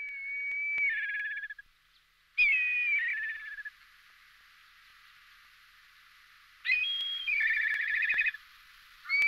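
Black kite calling three times, with the start of a fourth near the end. Each call is a high whistle that breaks into a quavering, whinnying trill.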